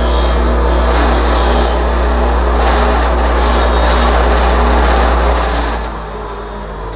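Electric motor of a power tool running steadily with a low hum and a rasping hiss over it, easing off about five and a half seconds in.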